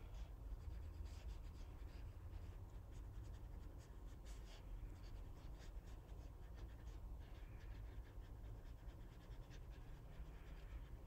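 Watercolor brush stroking on paper: faint, irregular scratchy swishes over a steady low room hum.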